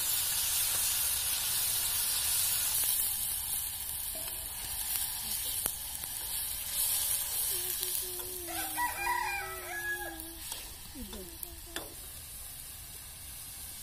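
Food sizzling as it fries in oil in an iron wok, stirred with a metal spoon that clinks now and then. About seven seconds in, a rooster crows once in a call of about three seconds, followed by a few short calls.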